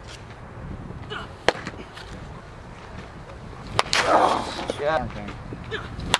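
Sharp single cracks of a baseball meeting a bat or popping into a catcher's mitt during live pitching: one about a second and a half in, another near four seconds, and a last one at the very end as the batter swings.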